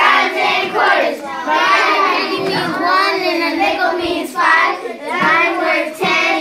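A class of young children singing their coin-value song together.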